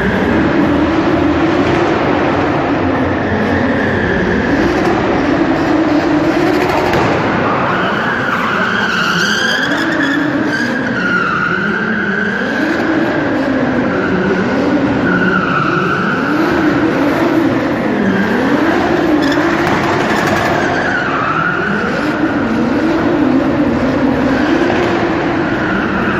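A drifting car's engine revving up and falling back again and again, with its tyres squealing through the slides.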